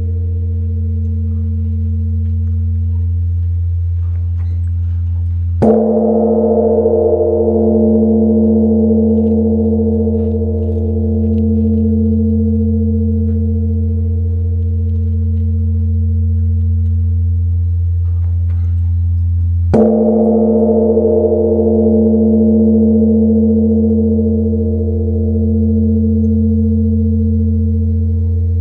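Great Korean Buddhist temple bell (beomjong) tolled for the evening ritual, struck twice about fourteen seconds apart with a wooden striker log. Each strike sets off a deep, long ring with a slow wavering pulse that is still sounding when the next strike lands.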